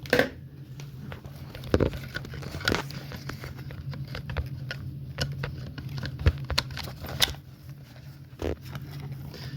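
Handling noise from a cordless impact driver kit: scattered sharp plastic clicks and knocks, the loudest about two, three and six seconds in, over a steady low hum.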